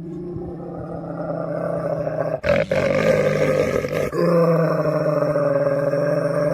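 An animal's long, rough, drawn-out growling call, held nearly steady in pitch and broken twice by short breaks.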